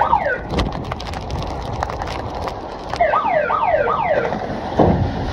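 Strong wind and rough sea washing along the side of a fishing boat's hull, with a few knocks. A high squeak falls in pitch right at the start, and three quick rising-and-falling squeaks come about three seconds in.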